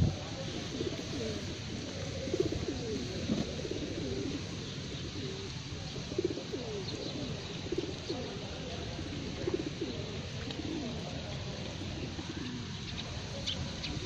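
A flock of feral pigeons cooing, many low coos overlapping one after another, thinning out near the end.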